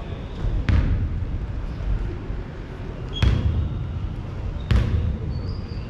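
A basketball bouncing on a hard gym floor: three separate bounces, the first about a second in and the others over two seconds later, with short high squeaks in between and near the end, over the noise of a large hall.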